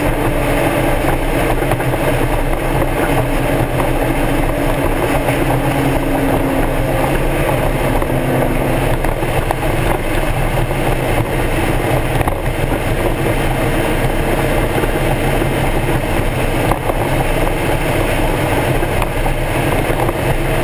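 Stock Mazda Miata's four-cylinder engine running at low revs, its pitch easing down over the first several seconds and then holding steady, with road and wind noise.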